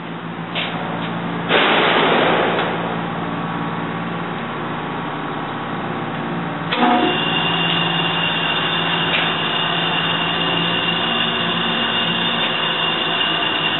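DoAll 6" x 18" surface grinder running with a steady motor hum. A brief rushing noise comes about 2 s in. A steady high whine joins about 7 s in and the machine gets slightly louder.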